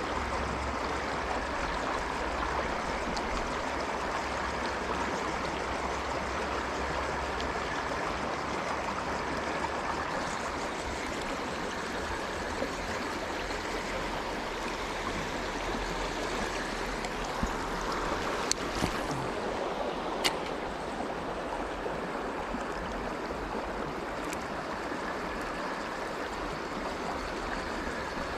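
Steady rush of flowing river water, with a few sharp clicks about two-thirds of the way through.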